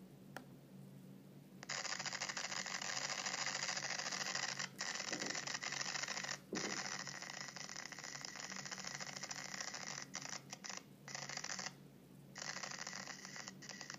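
Static hiss from a Trendnet TV-IP551W IP camera's microphone feed, played through a laptop's speakers. It starts about two seconds in and runs evenly, cutting out briefly a few times, with a longer gap near the end. It is a fault present from day one, which the owner suspects is the camera's wireless antenna interfering with its microphone.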